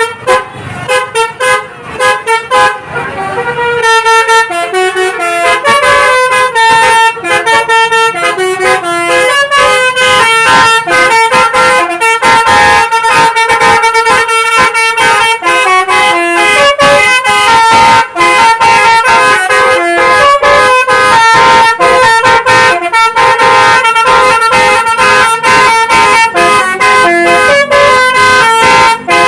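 Basuri 'telolet' bus horn, a multi-tone melody horn, playing a loud, fast tune of stepped notes: a few short separate toots at first, then about four seconds in an unbroken run of quickly changing notes.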